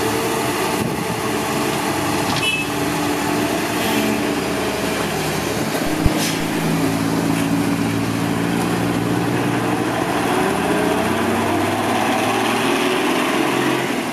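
Caterpillar 320D2 hydraulic excavator's diesel engine running steadily, its note climbing in pitch through the second half as it works. One sharp knock about six seconds in.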